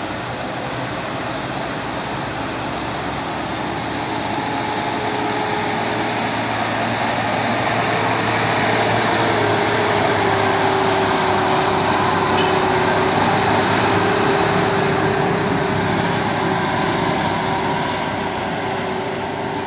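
Mitsubishi Fuso Fighter tanker truck driving past at close range, its diesel engine and tyres growing louder as it approaches. A steady whine drops slightly in pitch as the truck passes, about halfway through, and the noise then eases a little.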